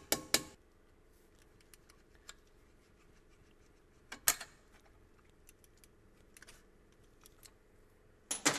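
Hammer tapping a steel punch against a brake-pad retaining pin in an alloy brake caliper: two quick metallic taps right at the start, then scattered light metallic clicks of handling, with one sharper knock about four seconds in and a few more clicks near the end.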